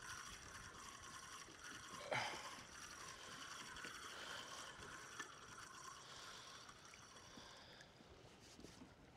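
Light water sloshing against a kayak hull, with a single knock about two seconds in and a faint steady whirr that fades out near the end.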